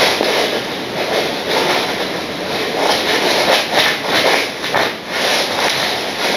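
Model train running on the layout's track out of frame: a steady rattling run with irregular clicks from the wheels on the rails.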